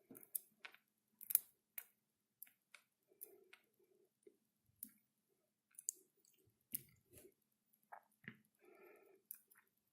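Small metal lock pins being moved and arranged on a hard surface by hand: faint, irregular light clicks and taps.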